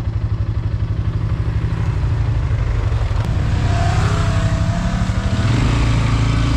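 Polaris Sportsman 400 ATV's single-cylinder engine under throttle as the quad speeds up along a trail. The engine pulls harder about two seconds in and again near the end, with wind noise rising as it goes faster.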